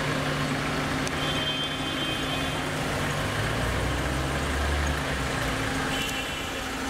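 A motor vehicle's engine running steadily while it drives, with continuous road noise. The low rumble swells briefly about two-thirds of the way through.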